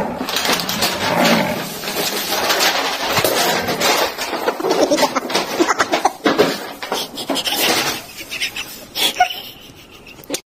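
A paper shopping bag rustling and crinkling as a cat tangled in it thrashes about, with dense crackles and scrapes that ease off near the end.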